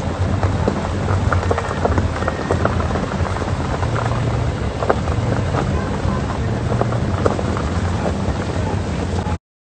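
Car driving on a gravel track, heard from inside the cabin: a steady low road rumble with a constant crackle of gravel popping under the tyres. It cuts off suddenly near the end.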